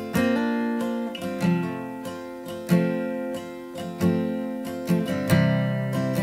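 Background music: an acoustic guitar strumming chords in a slow, even rhythm, each chord ringing out before the next.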